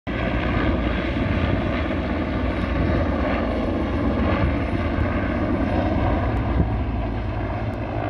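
Firefighting helicopter flying overhead: steady rotor and turbine noise.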